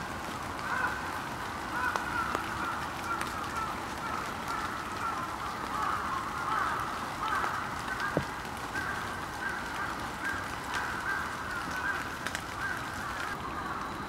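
A flock of birds calling without a break, many short calls overlapping. One brief knock sounds a little past the middle.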